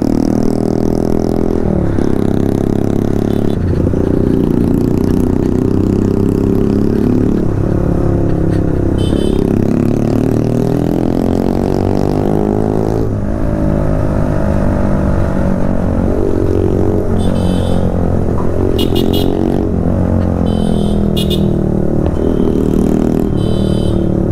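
Motorcycle engine under way, its pitch climbing as it revs and then dropping sharply at each gear change, several times over.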